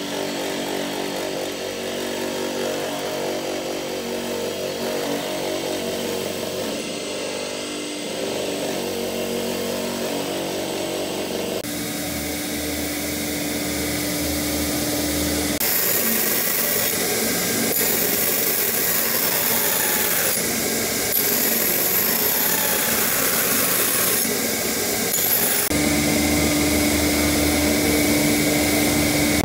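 Electric workshop grinding machines and motors running with a steady hum and whir; the sound changes abruptly a few times.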